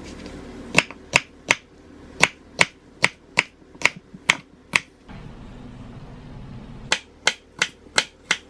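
Kitchen knife slicing ginger on a cutting board: a run of about ten sharp knocks at roughly three a second, a pause of about two seconds, then five more.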